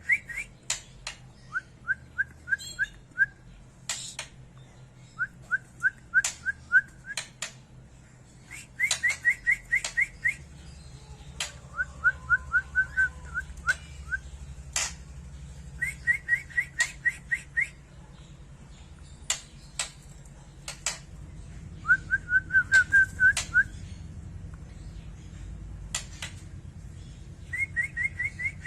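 Young songbird practising its song: short runs of six to eight quick rising whistled notes, repeated every few seconds, with sharp high chips between the runs.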